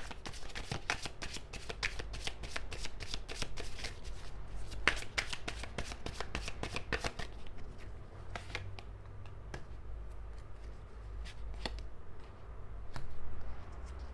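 A deck of cards being shuffled by hand: a rapid patter of card flicks for about the first half, thinning out to scattered ticks afterwards.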